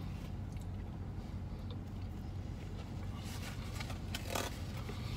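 Steady low hum inside a parked car. From about three seconds in, cardboard food box and wrapper are handled, crinkling and scraping, with one louder crackle about a second before the end.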